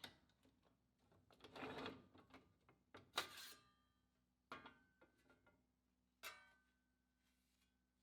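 Faint workshop sounds of sheet steel being handled: a short scrape, then three separate metal clanks, each ringing briefly.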